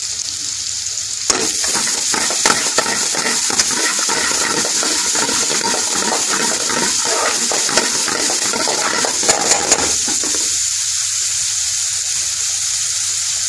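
Chopped onion and garlic sizzling in hot oil in a metal pan. From about a second in until near the end they are stirred and scraped around the pan, with a few sharp knocks of the utensil against it. Then the steady sizzle carries on alone.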